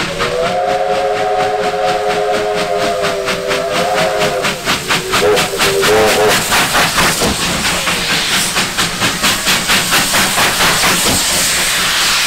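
Two Victorian Railways R class steam locomotives working hard past at speed, their exhaust beating at about four a second. A steam whistle sounds one long blast starting about half a second in, then a few short toots around the middle. Steam hiss builds near the end as the engines go by.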